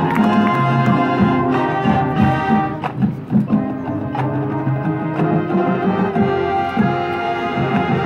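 Marching band playing its field show: wind instruments holding chords over percussion, with a few sharp percussion hits about three seconds in.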